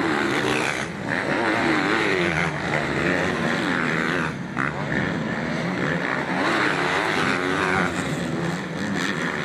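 Several motocross bikes racing past, their engines revving up and down over one another as the riders power through a dirt corner.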